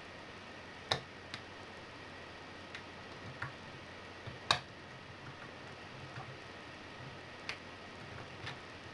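Lockpick working the pins of a MILA Evolution euro profile cylinder during single-pin picking, with a scattering of sharp, irregularly spaced metal clicks. The loudest click comes about a second in and another about halfway through.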